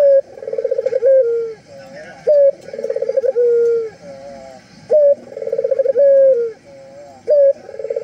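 Puter (Barbary dove) cooing in repeated phrases, about one every two and a half seconds. Each phrase is a short rising note, a rolling trill, then a long, slightly falling coo.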